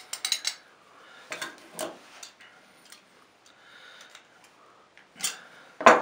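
A brass thermostatic shower cartridge and a pair of pliers being handled and set down on a worktop: a series of light metallic clinks and clatters.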